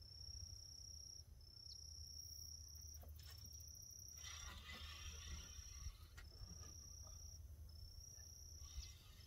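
An insect's high, even trill repeated about once a second, each trill lasting nearly a second, over a faint low rumble.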